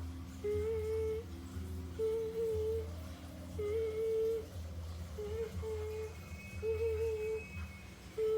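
A child humming a string of short held notes at one steady pitch, about seven in a row with brief pauses between them, as a mouth-made sound effect.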